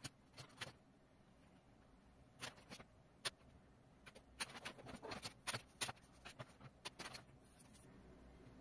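Faint scratching and tapping of a marker and ruler on paper, a few separate strokes and then a quick cluster of them in the middle, in a quiet room.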